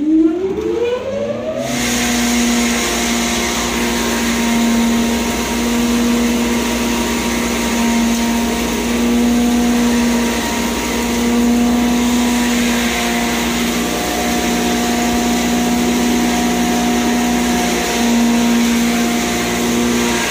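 Posho mill (maize grinding mill) spinning up, its pitch rising over the first couple of seconds, then running at a steady hum over a loud rushing noise as it grinds maize into flour.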